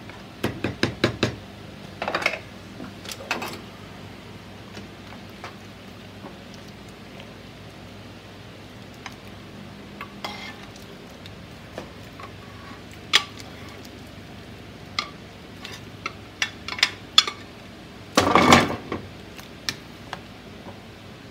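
A wooden spoon knocking a frying pan several times in quick succession as fried rice is scraped out into a pot of broth, then scattered clinks of a ladle against the aluminium pot while stirring, with one louder clatter late on.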